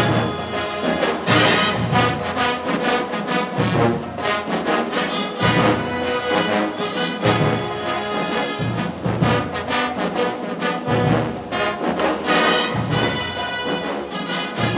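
Marching band playing: a brass section with trombones carrying the tune over a drumline beating out a steady rhythm.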